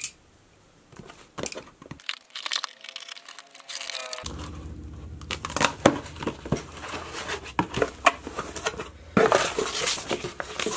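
Hands opening a cardboard shipping box: tape being cut and torn, cardboard flaps scraping and knocking as they are pulled open, and a burst of paper crinkling near the end as a paper insert is lifted out.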